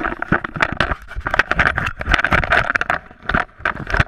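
Handling noise from a GoPro being taken down and fixed in a tree: close rubbing, scraping and a rapid run of irregular knocks on the camera's microphone.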